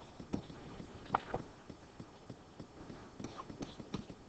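Stylus tapping and scraping on a tablet screen during handwriting: a string of light, irregular clicks.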